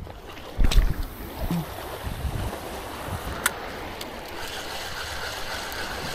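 Wind buffeting the microphone over sea water washing on the rocks, with a heavy handling thump about a second in as the spinning rod is swung in a cast. A sharp click from the spinning reel comes a little past the middle, before the line is wound in.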